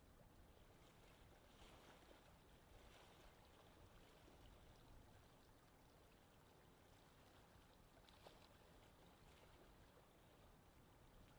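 Faint, steady gentle wind: a soft, even rush of air with a low rumble, holding level with no gusts.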